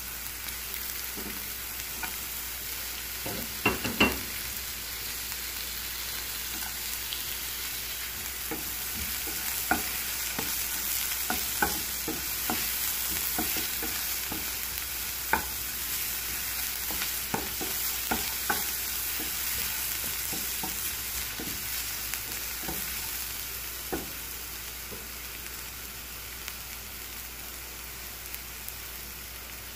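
Chopped shallots and garlic sizzling in hot oil in a nonstick frying pan, with a spatula stirring and now and then knocking against the pan. Two sharper knocks come about four seconds in.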